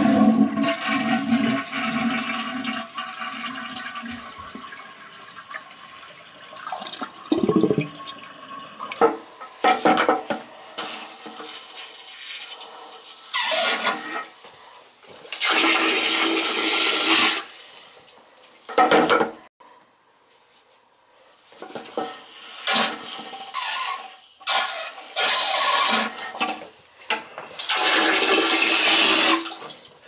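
Toilet flushing: water rushes out of the tank through the flush valve, loudest at the start and dying away over several seconds. Later come two spells of hissing water a few seconds long, around the middle and near the end, with scattered knocks between.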